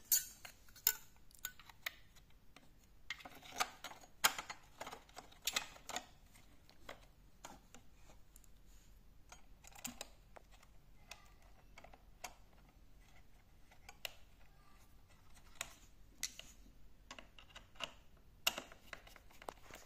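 Scattered clicks and light taps of small screws and the side cover plate being handled on a Bissell ProHeat 2X, with a screwdriver working a screw near the end.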